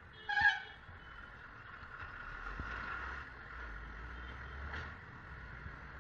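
A short single horn beep about half a second in, then steady road traffic noise with a vehicle's low rumble swelling and fading.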